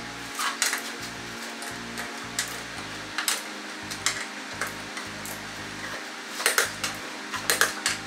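Irregular metallic clinks and taps of hand tools working on an ATV's front wheel, louder clusters about half a second in and again near the end, over background music.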